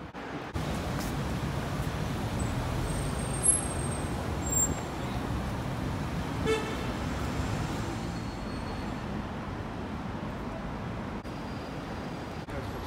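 Steady city street traffic noise, with a short pitched tone about six and a half seconds in.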